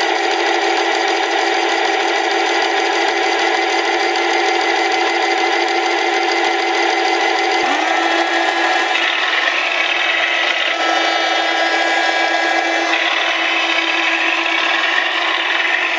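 Simulated tank-engine sound from an RC tank's small onboard sound unit: a steady buzzing hum with no deep bass. About eight seconds in, its pitch glides up, as if the engine is revving, and then holds.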